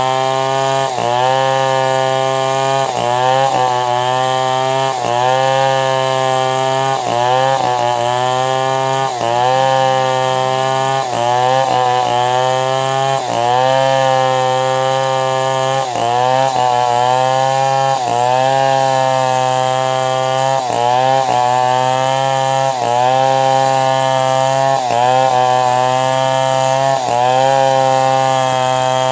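Chainsaw running under load while ripping a log lengthwise into planks; the engine note dips briefly and recovers about every two seconds.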